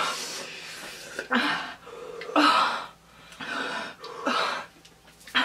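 Two people breathing out hard through the mouth and gasping, about five breaths a second apart, to cool mouths burning from raw serrano peppers.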